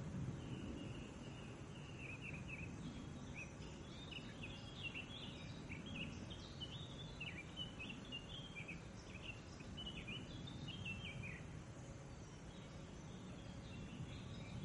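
Woodland songbird song: a run of quick high chirps and short falling notes that thins out and stops near the end, over a steady low rumble.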